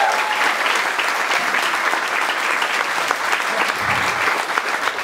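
Crowd applauding, a dense, steady clapping.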